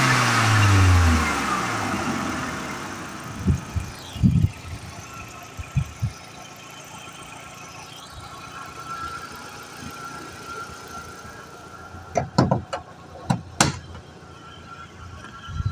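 Audi A3 1.8 20v turbo four-cylinder engine coming off throttle: its note falls in the first second and a rush of air fades away over a few seconds. It then runs quietly, with a few short thumps and some sharp clicks near the end.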